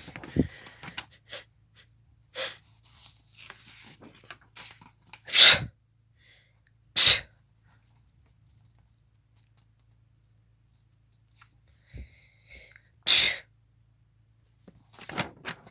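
Hiccups: sudden short bursts a few seconds apart, about six in all, the loudest about five, seven and thirteen seconds in.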